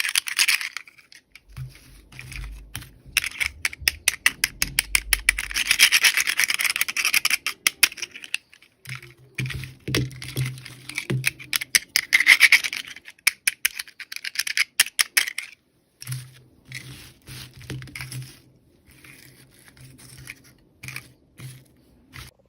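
Toy packaging being handled and opened by hand: rapid scratching, scraping and crinkling with many small clicks, in stop-start runs that thin out near the end.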